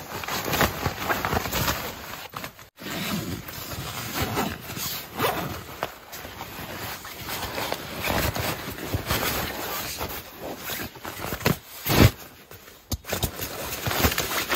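Irregular rustling and scraping, like gear being handled or steps in snow, with a heavier thump about twelve seconds in.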